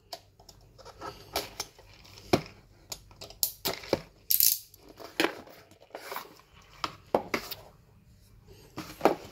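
Cardboard packaging and a paper leaflet being handled. There is a string of small knocks and clicks, with short paper rustles, the longest about four and a half seconds in.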